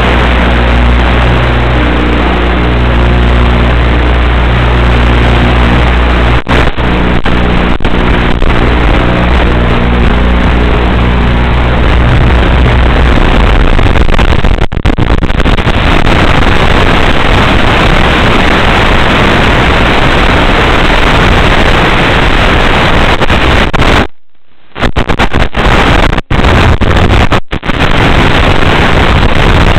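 Loud steady noise carried over the 5.8 GHz FPV video link, with a low hum under it for the first twelve seconds or so. The signal breaks up in several short dropouts and cuts out for about half a second near the end.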